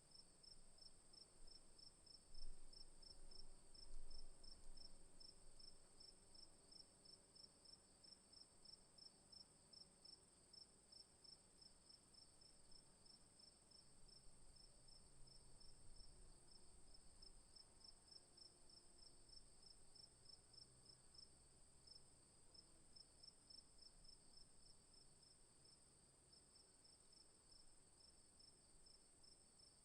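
Crickets chirping: one steady, unbroken high trill with a second, lower series of rapid, regular chirps under it. Faint low rumbles, louder twice in the first few seconds.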